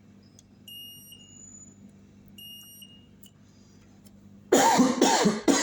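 Multimeter continuity beeper giving two short high beeps as the probes touch capacitors on a PS5 motherboard, over a faint steady hum. Near the end comes a loud, harsh sound lasting about a second.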